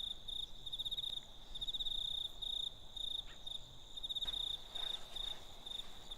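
Cricket chirping: a high, pulsing trill repeated in short, evenly spaced bursts.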